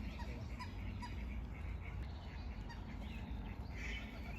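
Birds chirping, with short calls scattered throughout, over a steady low rumble.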